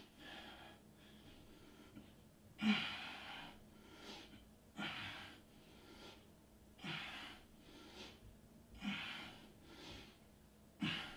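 A man breathing hard through exercise reps: a short, forceful breath about every two seconds, in time with lifting his chest off the floor in Superman back extensions.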